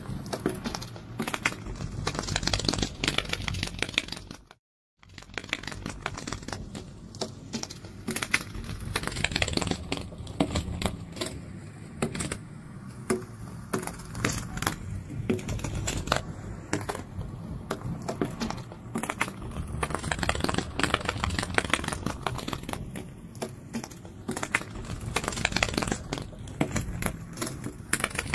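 Rapid, irregular crackling and clicking flutter, presented as butterfly wings flapping. It cuts out briefly about five seconds in, then carries on.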